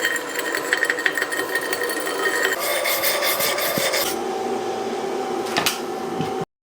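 Stick (MMA) welding arc from an Arccaptain MIG205MP inverter welder, a continuous crackling sizzle with small pops, shifting in tone twice and stopping abruptly near the end.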